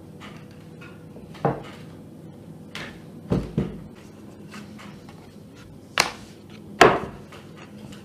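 Wooden rolling pin rolling out sugar fondant on a wooden board, with about five sharp knocks of wood on wood, the loudest two near the end, over a steady faint hum.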